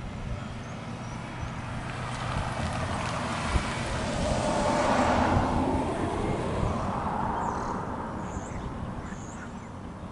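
A car driving past: tyre and engine noise swelling to a peak about halfway through, then fading away.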